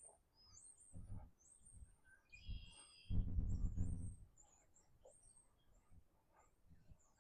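Songbirds chirping with short high calls throughout. About three seconds in, a louder low humming sound lasts about a second.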